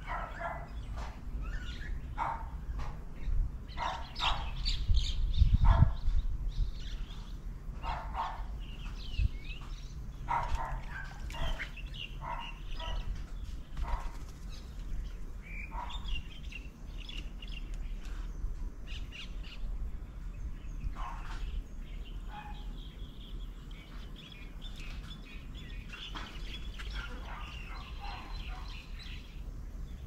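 Assorted birds chirping and calling in short, scattered notes, with a brief low rumble about five seconds in.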